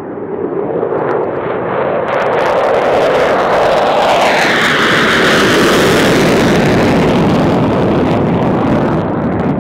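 EA-18G Growler's twin F414 turbofans on afterburner: a loud jet roar that builds as the jet comes in fast and low and holds as it climbs away, with crackle through most of it. About halfway through, the pitch sweeps up and then back down as the jet passes.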